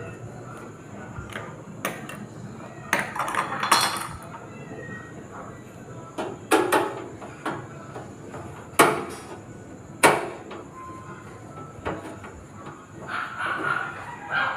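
Sharp metal clicks and clinks, a few separate knocks and a short cluster, as a screw is fitted and driven to fasten a graphics card's bracket to a computer case.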